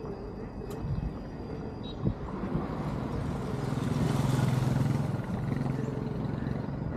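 A motor vehicle passes close by, its engine note and road noise building from about two seconds in, loudest around the middle, then easing off.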